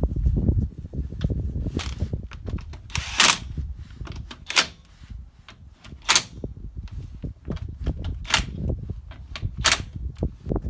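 Cordless impact wrench driving in wheel bolts in about six short bursts, the one around three seconds in the longest, as the front wheel is refitted.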